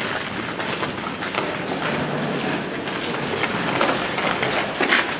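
Passengers boarding a standing train: footsteps and rolling suitcase wheels clicking and scraping on a gritty, snowy platform, over the low steady hum of the train.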